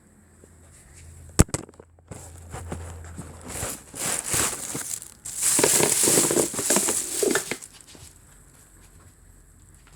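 A sharp click, then several seconds of rustling and crinkling, loudest a little past the middle, dying away near the end.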